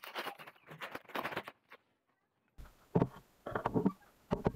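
Plastic wrapping crinkling and tearing as it is pulled off a steel motorcycle luggage carrier. After a short break, the steel rack is set down and handled on a table, giving several sharp knocks, the loudest about three seconds in and near the end.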